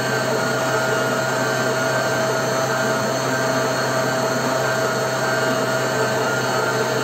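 SilverCrest stand mixer's motor running steadily at one pitch, turning its dough hook to knead bread dough.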